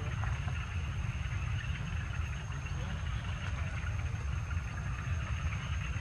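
Wind buffeting the microphone outdoors: a steady, fluttering low rumble, with a faint thin high whine above it.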